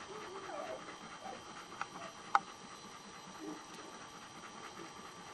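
Faint sounds of a nursing litter: a Kuvasz mother panting, with newborn puppies giving a few small squeaks. Two sharp clicks about two seconds in, the second louder.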